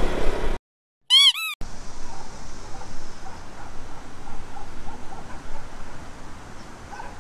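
A cartoon-style squeak sound effect dropped in after a sudden cut to silence: three quick squeaks, each rising then falling in pitch. Then a steady, quiet outdoor background hiss with faint scattered chirps.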